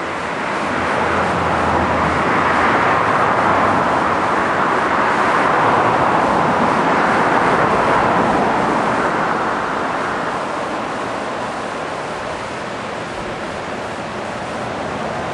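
A passing vehicle: a steady rushing noise that swells over a few seconds and fades away, then begins rising again near the end.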